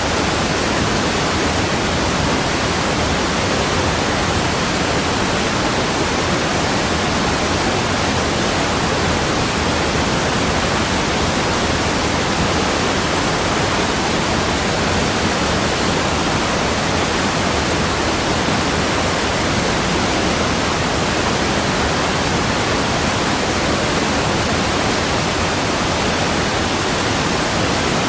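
Waterfall: water falling continuously, a steady, even noise that does not change.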